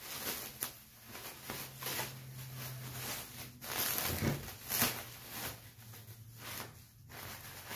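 Plastic shrink wrap and brown packing paper crinkling and rustling in uneven handfuls as they are pulled off a bicycle.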